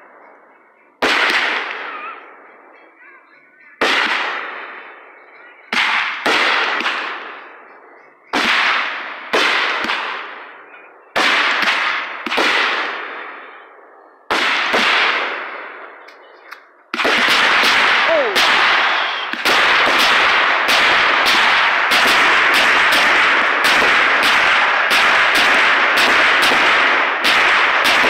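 Fireworks going off: single loud bangs of bursts about every two seconds, each trailing away, then, about 17 seconds in, a dense unbroken barrage of rapid cracks and crackle.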